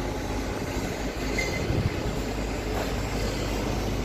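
Steady mechanical rumble and low hum of ship and quayside machinery during cargo loading, with a brief high squeal about a second and a half in.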